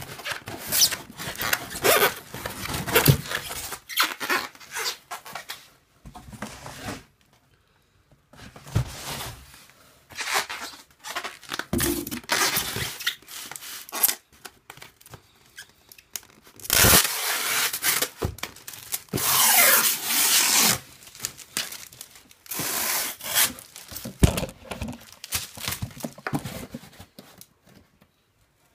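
Styrofoam shipping box scraping and squeaking against the inside of a cardboard carton as it is worked out by hand, with cardboard rustling, in irregular bursts separated by short pauses.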